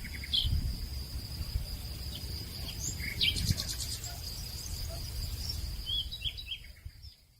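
Birds chirping and calling, with a quick trill about three seconds in, over a steady high insect drone and a low rumble of outdoor noise; it all fades out near the end.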